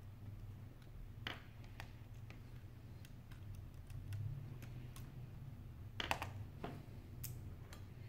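Scattered small clicks and taps of fingers handling an opened iPhone 5's display assembly and internal connectors, with a cluster of louder clicks about six seconds in, over a low steady hum.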